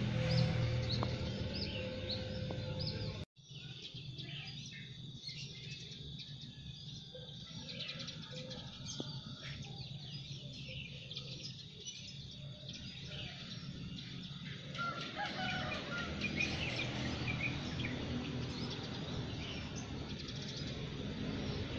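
Wild birds chirping and calling in a morning chorus, many short high chirps over a steady low background noise. The sound cuts off sharply about three seconds in, then returns quieter, and the calls grow busier again toward the end.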